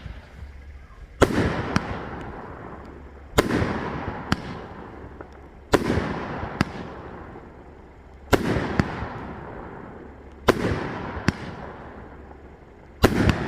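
A 25-shot consumer firework cake firing, about one shot every two seconds, six in all. Each shot is a sharp bang followed by a long fading crackle and rumble, with a smaller sharp pop in between.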